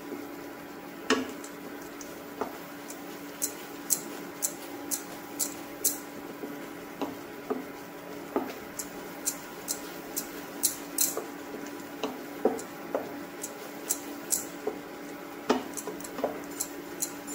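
A metal spoon scrapes and clicks irregularly against a nonstick frying pan as a thick masala paste is stirred without stopping, to keep it from sticking to the bottom. A steady low hum runs underneath.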